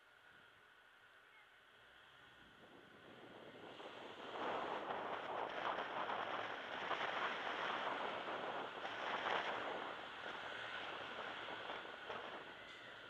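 Rushing wind and road noise from a moving car, swelling about four seconds in as the car picks up speed and easing off near the end.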